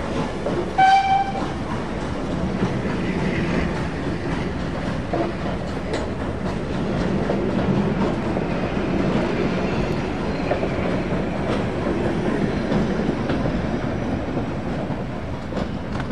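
Passenger coaches of a steam-hauled train rolling past, a steady rumble with wheels clicking over the rail joints. About a second in, a short whistle blast from the Danish F-class 0-6-0T tank locomotive at the head of the train.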